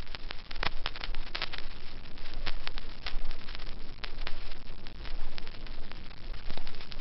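Fireworks crackling: a dense, irregular run of sharp pops and crackles over a steady hiss.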